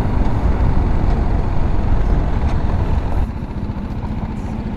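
BMW G310GS single-cylinder motorcycle riding, its engine running under a heavy rush of wind noise as it slows. About three seconds in the rush falls away, leaving a quieter, even engine beat at low revs.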